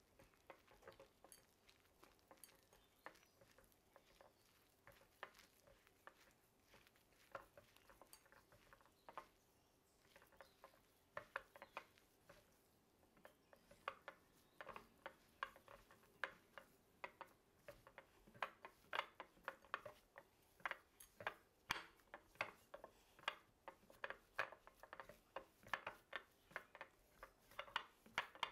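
A utensil clicking and scraping against a mixing bowl as ingredients are stirred. Sparse light clicks at first, becoming a quicker, fairly regular run of clicks from about halfway through.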